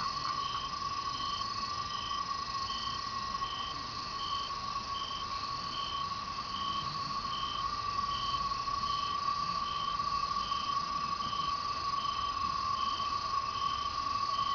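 Night insect chorus: cicadas keep up a steady, unbroken high-pitched hum, over which other insects repeat short, evenly spaced chirps at a higher pitch.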